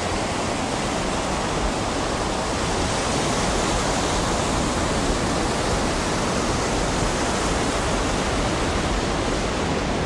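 Ocean surf breaking on a beach: a steady, even rush of waves with no distinct swells from one wave to the next.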